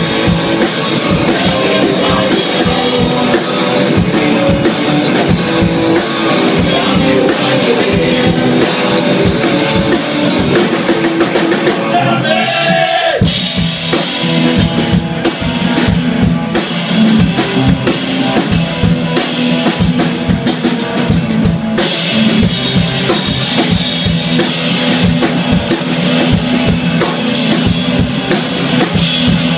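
Live rock band playing an instrumental passage: distorted electric guitar over a busy drum kit. About twelve seconds in the drums stop briefly while one sliding note sounds, then the band comes back in.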